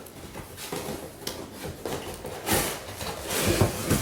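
Toy packaging being opened and handled: irregular rustling and scraping with small knocks, loudest at about two and a half seconds in and again around three and a half seconds.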